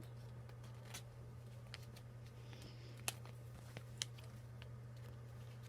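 Trading cards being slid into plastic card sleeves: a few faint, sharp clicks and light handling sounds over a steady low hum.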